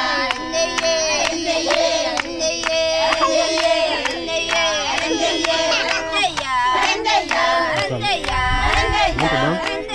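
A group of voices singing a song together, accompanied by steady, rhythmic hand clapping.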